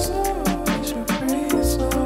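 Background music with a steady beat: drums, bass and sustained chords, with no singing.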